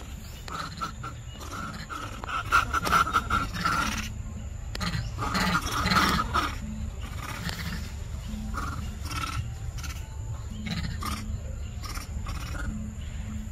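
Macaque calls: a run of loud, harsh calls about two to four seconds in, another about six seconds in, then shorter, fainter calls.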